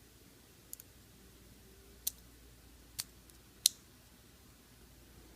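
Small plastic parts of an N scale model locomotive clicking as they are fitted together: a faint double tick under a second in, then three sharper clicks about a second apart, the last the loudest.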